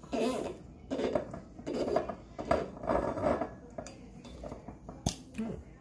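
Cork creaking and squeaking in the neck of a wine bottle as it is worked out with a waiter's corkscrew, in a series of short pulls about a second apart, with a sharp click near the end.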